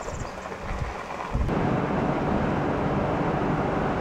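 Vehicle noise inside a pickup truck's cab: a low rumble while moving slowly, then about a second in an abrupt jump to loud, steady road and wind noise at highway speed.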